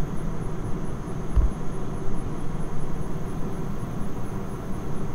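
Steady low outdoor background rumble, with one brief low thump about a second and a half in.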